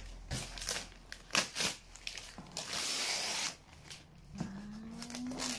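Gift-wrapping paper being torn and crumpled off a cardboard box: a series of short rips and crinkles, then one longer tear about three seconds in.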